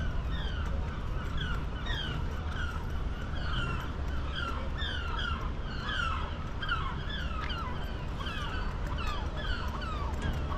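A crowd of birds calling, with many short, downward-sliding calls overlapping several times a second, over a steady low rumble.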